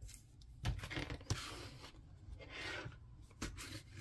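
Cardstock and paper pieces being handled and rubbed against a cutting mat: rustling and scraping, with a few light knocks.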